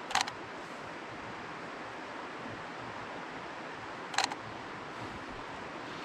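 Canon 90D DSLR shutter firing twice, about four seconds apart, each a quick double snap of mirror and shutter. Under it runs the steady rush of the river.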